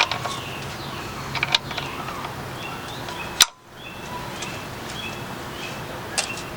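Faint outdoor ambience with short bird chirps, a few light clicks, and one sharp click about halfway through, followed by a brief near-silent gap.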